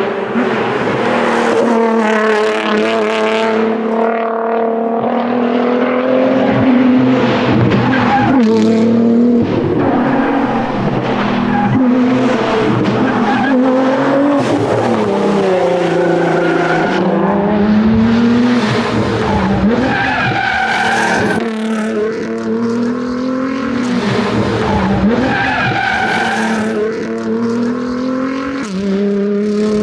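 Nissan R35 GT-R's twin-turbo V6 driven hard, its pitch climbing through the gears and dropping back on lifts and braking, over and over.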